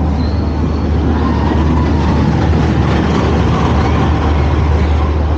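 Molly Brown paddle steamer riverboat under way, heard on board: a loud, steady low rumble from the boat's machinery and paddle wheel, with an even rushing noise over it.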